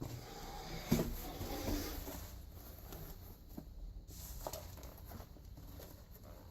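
Light rustling and scattered small knocks of debris being gathered up by hand, with one sharper knock about a second in.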